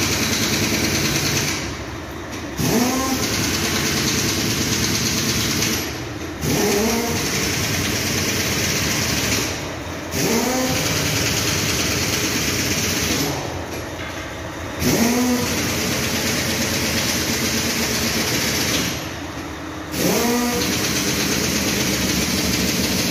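A motor or engine revving up again and again, about every four to five seconds. Each rev starts with a rising whine and holds a loud, steady run for a few seconds before dropping back.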